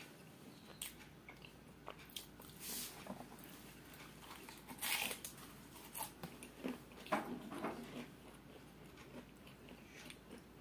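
Close-up eating sounds: biting into a fried samosa and chewing it, the crisp pastry crunching in irregular bites. The loudest crunches come about 5 and 7 seconds in.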